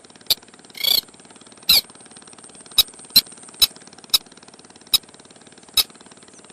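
Crake lure-call recording: a run of short, sharp call notes, about nine in six seconds at uneven spacing, a few of them slightly drawn out, over a steady hiss.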